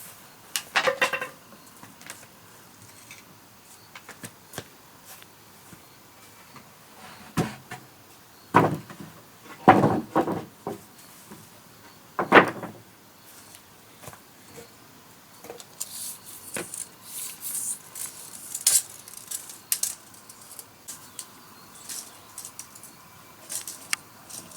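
Irregular knocks, clicks and clatter from objects being handled, with a few louder thumps around nine to twelve seconds in and a scratchy, hissing stretch a few seconds later.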